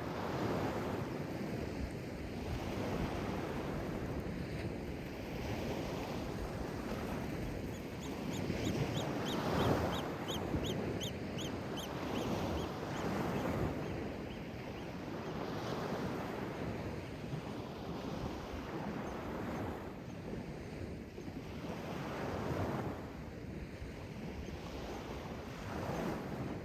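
Sea waves washing in on the shore, the noise swelling and easing every few seconds. Near the middle a bird gives a quick run of about a dozen short, high calls lasting some four seconds.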